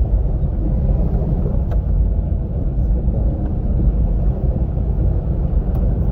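Steady low rumble of a car driving along a road, engine and road noise.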